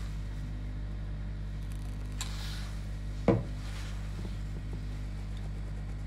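Steady electrical mains hum with a single sharp knock about three seconds in, preceded by a fainter click.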